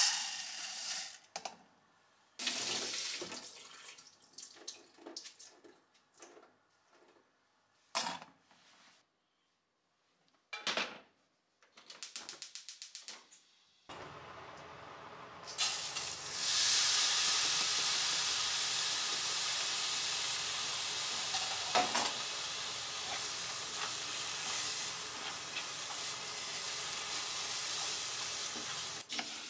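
Dry brown rice poured into a stainless mesh strainer, then short bursts of rinsing water. About halfway through, the washed brown rice goes into a smoke-hot cast-iron pot and sizzles with a loud steady hiss as it is stirred with a wooden spoon.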